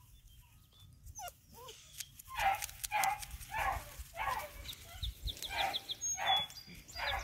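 Black and tan coonhound puppies whining and yipping while they play-wrestle: a few thin squeaks about a second in, then a steady run of short yips.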